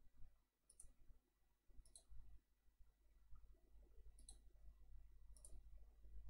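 Near silence broken by four faint, sharp clicks, spaced about one to two seconds apart.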